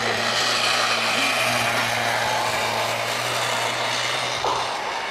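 Greyhound track's mechanical lure drive running, a steady whirring and rushing with a low hum underneath that stops near the end.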